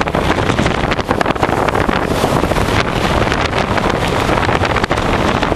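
Blizzard wind, sustained about 54 mph with gusts to 74 mph, blasting straight into the microphone: loud, unbroken wind noise with constant irregular buffeting.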